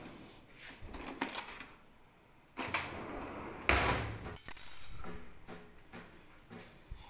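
Kitchenware being handled on a counter: a few knocks and clatters, with a louder spell of rattling about three to four seconds in.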